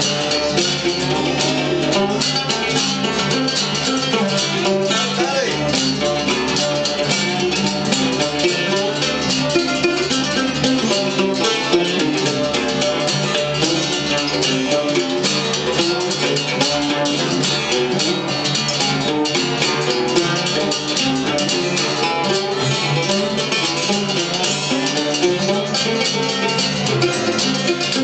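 A group of guitars and banjos playing a lively strummed and picked instrumental tune together.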